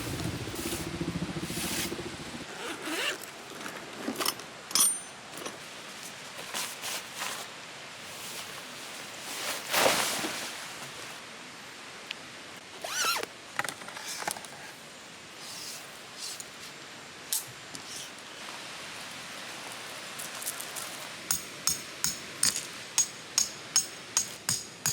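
A low engine hum stops about two seconds in. Then come scattered rustles, clicks and scrapes of gear being handled over a steady hiss. Near the end there is a quick series of about a dozen sharp, ringing metallic strikes, roughly two a second.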